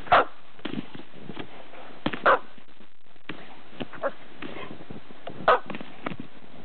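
A dog barking three times, short sharp barks a couple of seconds apart, with lighter clicks between them.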